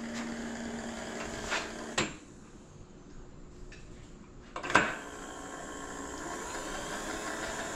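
Electric motor on a Lagun milling machine humming steadily, switched off with a click about two seconds in, then started again with a clunk near the five-second mark and humming on.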